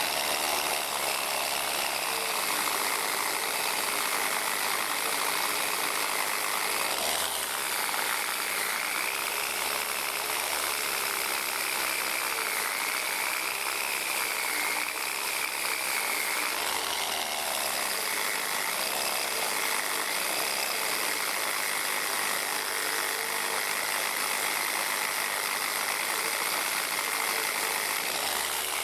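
Power tool running steadily, stripping paint off the cast iron lamp post to uncover the cast maker's name. Its pitch wavers up and down as the load changes.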